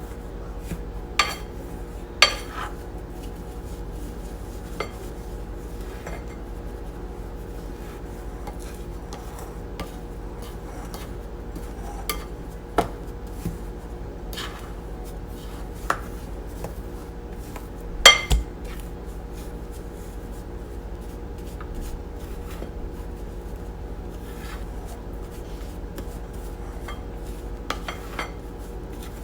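A kitchen utensil scraping and clinking against a mixing bowl as powdered sugar, almond flour and salt are stirred together by hand, with scattered sharp knocks; the loudest is a double knock about 18 seconds in. A steady low hum runs underneath.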